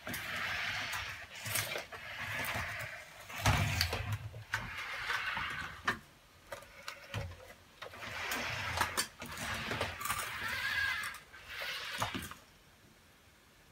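NAO humanoid robot's joint motors whirring in repeated spells as it lowers itself onto its belly, with clicks and a heavier knock about three and a half seconds in as its body settles on the tile floor. The whirring stops about twelve seconds in.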